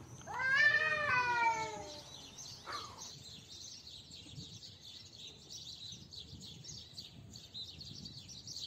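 Domestic cat giving one long hostile yowl in a standoff with another cat: the pitch rises quickly, then slides down over about a second and a half. Faint high twittering goes on in the background afterwards.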